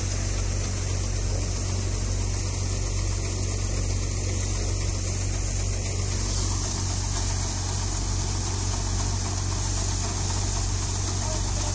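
Tractor engine and the tractor-driven threshing machine it powers, running steadily at a constant speed.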